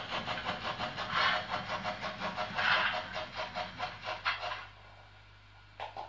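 Model steam locomotive's sound decoder playing rhythmic steam chuffs as the engine runs. The chuffing stops about four and a half seconds in as the locomotive halts, leaving a low steady hum and one brief sound near the end.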